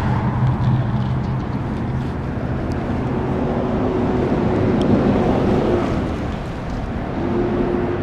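Motor vehicle running close by: steady engine and road noise, with a faint humming tone that comes in about three seconds in, drops away near six seconds and returns near the end.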